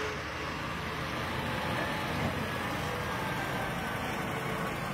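A truck-mounted crane's engine runs steadily as it lifts a statue, mixed with outdoor street noise.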